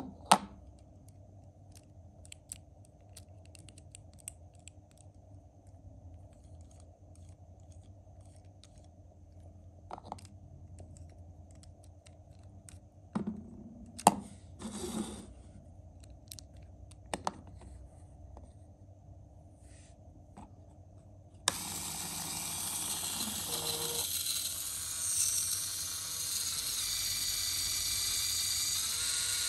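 Scattered clicks and snaps of LEGO Technic parts being handled and pushed together, then about two-thirds of the way through a small LEGO electric motor switches on suddenly and runs steadily with a whine, driving the chain-link clutch.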